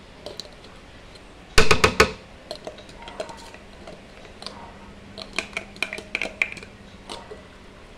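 Metal spoon clinking and scraping against a mayonnaise jar as the last of the mayonnaise is dug out. There is a loud cluster of clinks about one and a half seconds in, then scattered lighter taps from about five seconds in.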